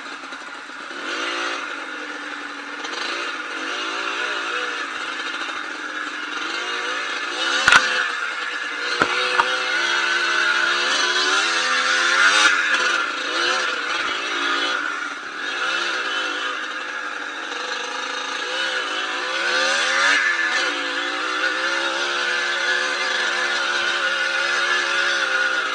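Yamaha DT125 two-stroke dirt bike engine revving up and down unevenly. There is a sharp knock about eight seconds in, and a couple of smaller knocks a second later.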